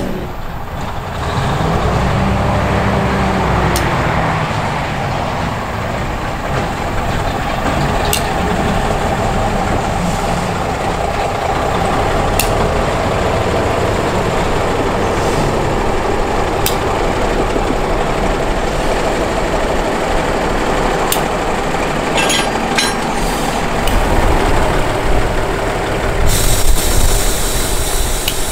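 A heritage train running along the line with a steady rumble, sharp clicks every few seconds, and a hiss that starts near the end.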